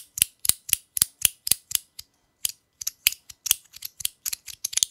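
Compoform V3 fidget being clicked in the hand: sharp clacks about four a second, then after a short pause a quicker, uneven run of clicks.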